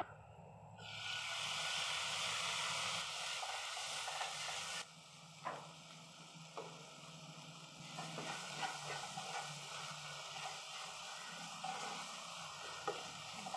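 Chopped tomatoes sizzling as they hit hot ghee and fried onions in a non-stick pan. The loud sizzle cuts off suddenly about five seconds in, giving way to a quieter sizzle with a wooden spatula stirring and scraping the pan.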